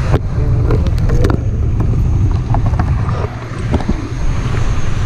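A steady low rumble throughout, with a few sharp knocks, near the start and about a second in, from plastic water bottles being handled; faint voices underneath.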